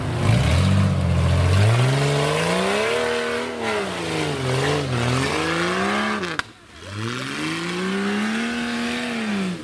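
Off-road pickup's engine revving hard as it claws up a steep snowy slope with its wheels spinning. The revs rise and fall several times, break off sharply about six and a half seconds in, then climb again and drop away near the end.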